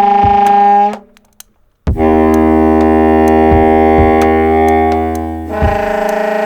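Homemade foghorn sounding long, steady blasts. One note cuts off about a second in; after a short gap a lower, deeper blast holds for about three and a half seconds, then gives way to a higher note. Scattered clicks run through it.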